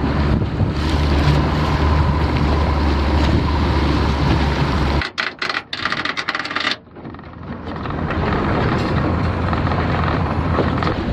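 Boat motor running with a steady low drone over wind and water noise. It cuts out abruptly about halfway through, a few clicks follow, and then wind and water noise carries on.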